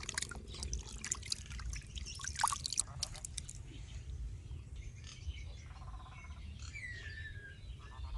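Water sloshing and squelching as hands knead and wring raw pig intestines in a bowl of water, stopping about three and a half seconds in. Birds chirp faintly afterwards.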